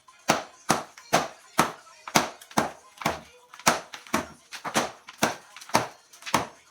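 Hammer blows struck steadily, about two a second, some thirteen sharp strikes.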